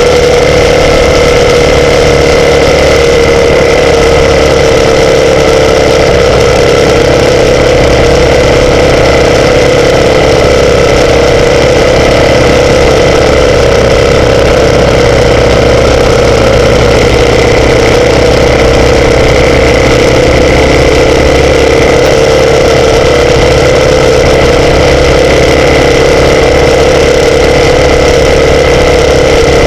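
Motorcycle engine running steadily, loud and close, holding an almost constant pitch with no revving.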